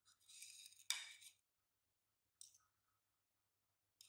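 A kitchen knife scraping on a papaya's skin, ending in one sharp click about a second in, with a second brief faint scrape a little later.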